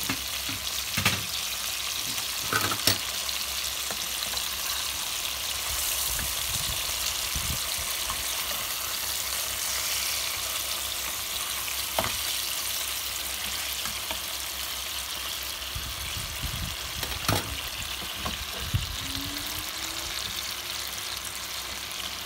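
Pork shoulder steaks sizzling steadily in hot oil in a nonstick frying pan. A few sharp clicks of metal tongs against the pan come as the steaks are lifted and turned.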